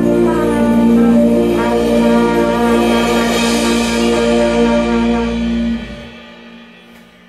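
Trumpet playing a closing phrase with held notes over an instrumental backing track. The music stops about six seconds in, leaving a short fading tail.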